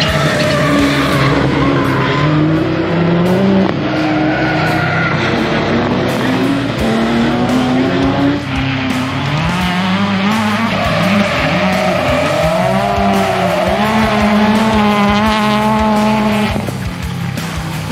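Rally cars racing hard on a circuit: engines revving up and down through gear changes as they accelerate and pass. The engine note changes abruptly twice as a different car takes over.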